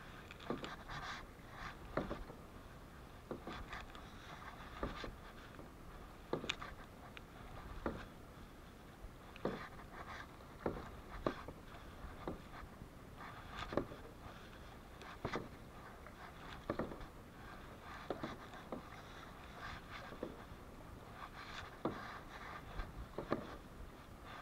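Kayak paddling: paddle strokes knocking and splashing in a regular rhythm, about one every second and a half, over a steady wash of water.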